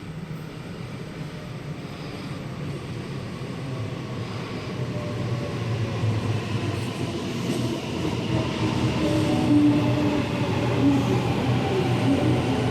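Electric passenger train growing steadily louder as it approaches, with a rising hum and whine from its motors and wheels on the rails.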